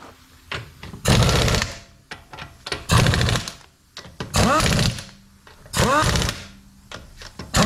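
Impact wrench spinning lug nuts onto a wheel in short trigger bursts, about one every second and a half. Each burst is a rattling whir that rises in pitch as the motor spins up.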